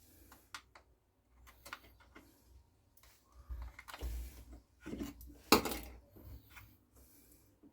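Scattered clicks and light knocks of small chainsaw parts being handled and pressed into place as the throttle is fitted to a Homelite chainsaw, with one sharper click a little past halfway.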